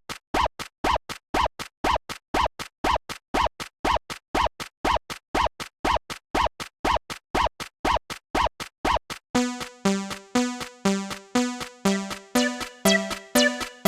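Japanese railroad crossing alarm ringing in short, even dings, about two a second. A little over nine seconds in it changes to a deeper bell tone that rings on after each strike.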